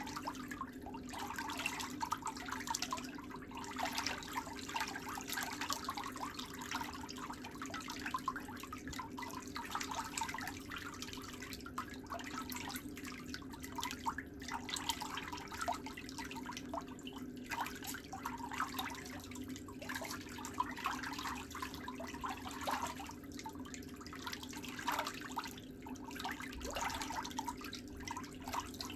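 Steel pedicure tools, a nail pick and nail nippers, scraping and clicking at the edge of a big toenail as a steady crackle of small irregular clicks, over a constant low hum.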